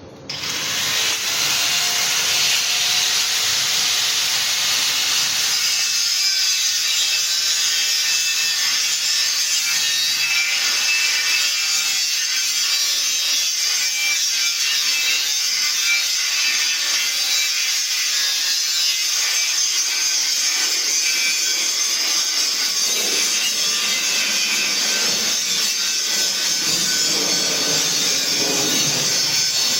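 Power saw cutting wood: a steady, unbroken rasping noise that starts abruptly.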